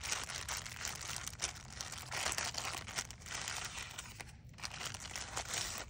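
Clear plastic wrapping and a folded paper leaflet crinkling and rustling as they are handled, in irregular bursts with a short lull about four seconds in.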